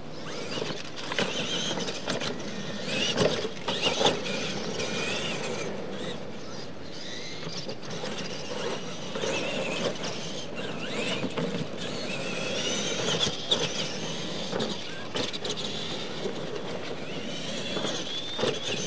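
Radio-controlled monster trucks racing on dirt: their electric motors and gearboxes whine, rising in pitch again and again as they accelerate, with a few sharp knocks about three and four seconds in.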